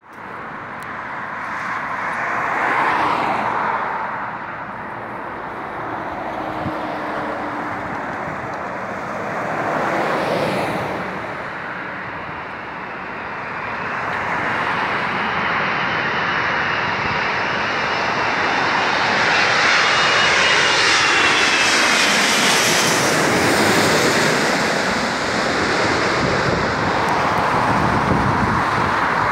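Jet engines of an Emirates Airbus A380 on final approach to land: a steady roar that builds as the aircraft comes in low, with a high whine that dips slightly in pitch about two-thirds of the way through. Road traffic passes near the end.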